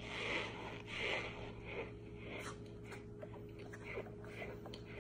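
Mouth chewing a mouthful of dry cornstarch: soft crunching chews about every three-quarters of a second, giving way to fainter little clicks in the second half.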